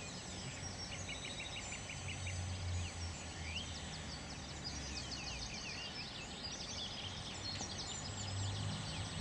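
Small birds chirping and trilling steadily over open-air background noise, with a low rumble of wind on the microphone swelling twice.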